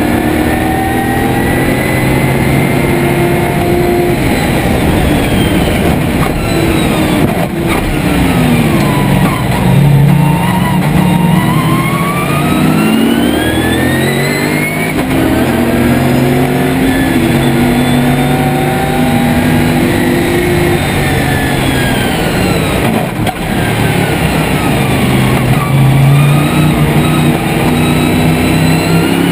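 Lotus Esprit V8 race car's engine heard from inside the cockpit at racing speed, revving up through the gears in steps, dropping sharply on downshifts about a third of the way in, then pulling hard again.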